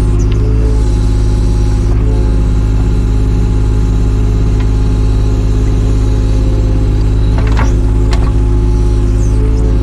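Takeuchi TB216 mini excavator's diesel engine running at a steady speed while it works, with a few short knocks about three-quarters of the way through.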